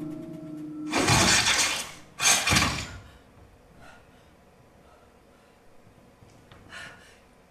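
Two loud crashes with a shattering, glass-like sound, the first beginning about a second in and the second right after it, each lasting under a second. They follow a held musical tone that dies away. After them it is nearly quiet, with a faint brief noise near the end.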